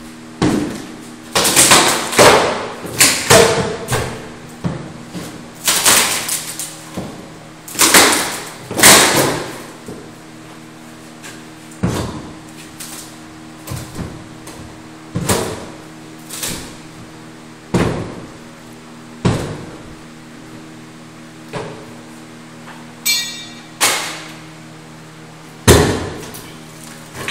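Sledgehammer blows knocking out a wall: about twenty sharp, heavy strikes at irregular intervals of a second or two, closest together and loudest in the first ten seconds, each with a short ringing tail.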